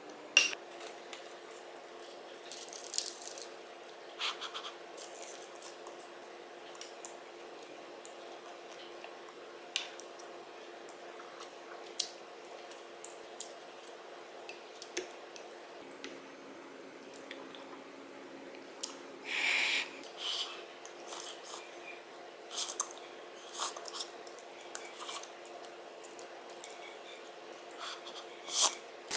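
Quiet eating sounds: a wooden spoon stirring and scooping soft tofu stew in an earthenware pot, with scattered light clicks and taps of utensils and dishes, and one longer scrape or rustle about two-thirds through. A faint steady hum sits underneath.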